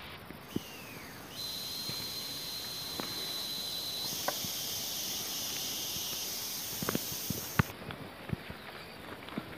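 Insects droning in hillside forest: a steady high-pitched buzz sets in about a second and a half in, becomes a wider hiss about four seconds in, and stops near the end. Faint scattered clicks run throughout.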